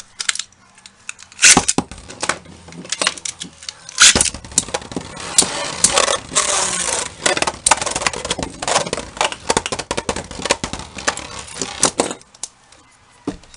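Two Beyblade spinning tops, Lightning L-Drago 100HF and Poison Serpent SW145SD, whirring and grinding around a clear plastic Zero-G stadium bowl, with sharp clacks as they collide. Scattered clicks come first, then a dense, continuous rattling scrape from about four seconds in that stops suddenly about twelve seconds in.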